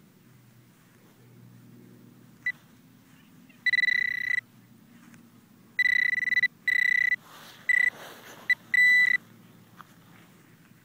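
Metal detector beeping in a series of steady, high electronic tones, some short blips and some held for about half a second: it is sounding on a target in the dug plug of soil.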